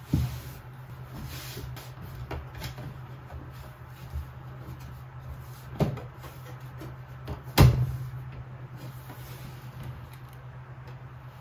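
Glass side panel of a desktop PC case being gripped and tugged at: a few knocks and clunks, the sharpest about two-thirds of the way through, over a steady low hum.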